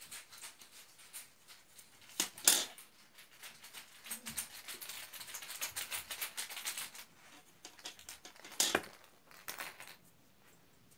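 Small clicks, taps and rustles of plastic toy makeup pieces and a doll being handled on a table, with a few louder knocks about two and a half seconds in and again near nine seconds.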